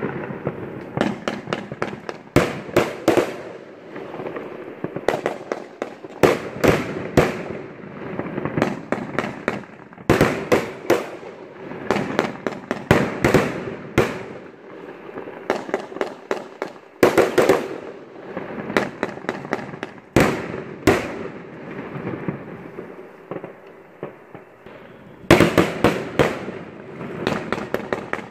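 Fireworks going off in a dense barrage: many sharp bangs in quick clusters every second or two, with continuous crackling between them.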